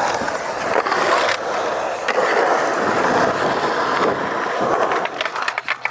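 Skateboard wheels rolling on a concrete skatepark surface: a steady rolling noise with a few light knocks, easing off near the end.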